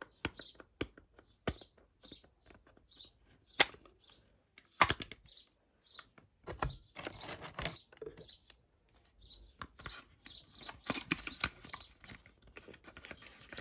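Irregular clicks, snaps and rustling of product packaging being handled while sellotape is picked and peeled off to open it, with a couple of louder snaps a few seconds in.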